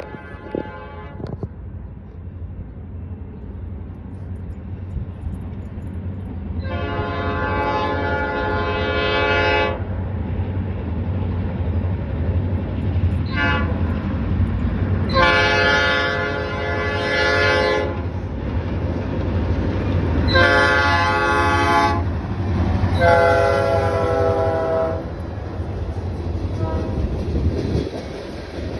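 Norfolk Southern diesel freight locomotive sounding its air horn in a series of blasts, mostly long with two short ones, over the low engine rumble that grows louder as the train draws near. Near the end, freight cars roll past.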